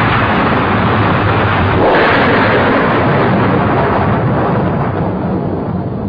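Loud rumbling roar of a volcanic eruption sound effect, steady and noisy, swelling about two seconds in and fading near the end.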